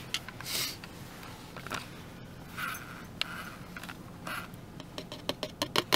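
Amino Energy powder poured from its plastic tub into a plastic shaker cup: a few soft swishes of sliding powder and plastic scraping, with a small click. Near the end a quick, regular rattling of plastic starts, about four strokes a second.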